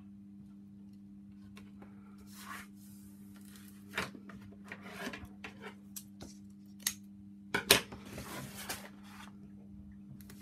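Red liner tape being handled and pressed down onto card: scratchy rustling and rubbing with a few sharp clicks, the loudest about three quarters of the way in. A faint steady low hum runs underneath.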